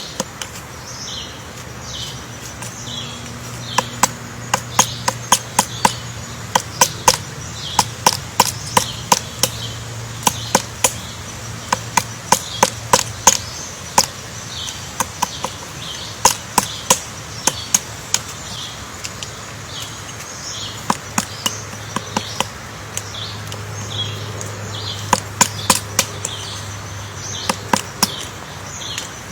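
Woodpecker pecking into wood: sharp single taps, several a second, in irregular runs with short pauses.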